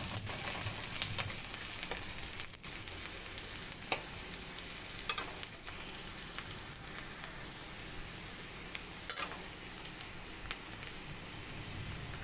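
Sliced onion, garlic, green chillies and dried red chillies sizzling in hot mustard oil in a kadhai. A spatula scrapes and taps against the pan now and then.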